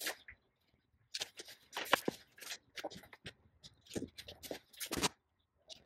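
Fabric and a paper pattern piece rustling and sliding on a cutting mat as they are handled, in a series of short, irregular scratchy bursts. A light knock comes right at the start.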